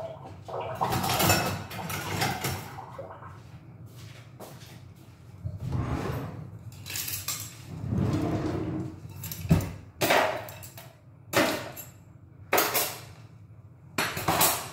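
Kitchen clatter of things being handled: scraping and rustling, then a run of about five sharp knocks and bangs in the second half.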